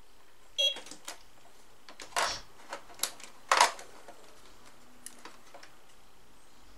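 Short plastic clicks and knocks as a battery pack and its plug are pushed into the battery compartment under a toy RC dump truck: a run of clicks over the first four seconds, the loudest about three and a half seconds in, then a faint one a little later.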